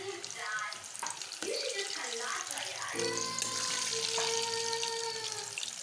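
Gujiya pastries deep-frying in hot oil, a steady sizzle with fine crackling. About halfway through, background music with long held notes comes in over it.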